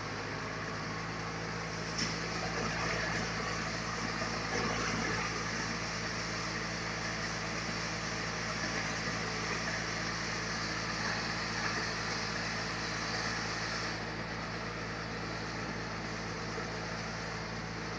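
Sawmill running with a steady engine-like drone, and a hissing cutting noise from a couple of seconds in until near the end as the saw works through a large log.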